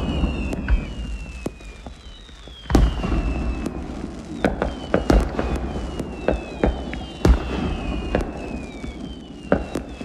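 Fireworks going off: sharp bangs and pops of bursting shells with a deep rumble beneath, and two heavy booms about three and seven seconds in. Several rocket whistles glide down in pitch between the bursts.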